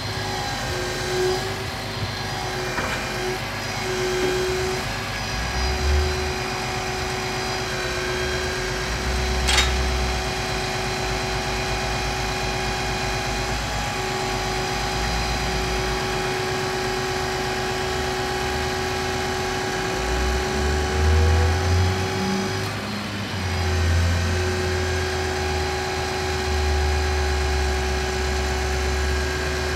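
Scania R490 crane truck running steadily to power its loader crane's hydraulics while the boom unfolds, with a constant whine over the engine and a low rumble that swells several times as the crane moves. One sharp click about ten seconds in.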